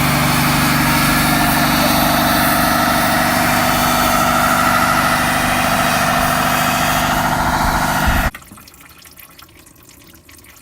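A 4.0-litre engine running loud at steady revs with a dense hiss over it, cutting off abruptly about eight seconds in.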